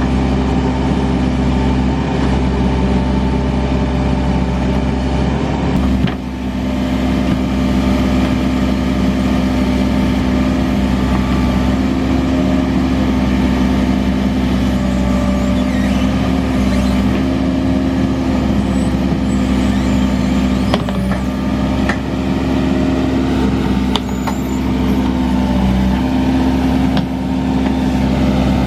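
Case 580 Super N backhoe loader's diesel engine running steadily, its pitch shifting slightly now and then, with a few light knocks in the second half.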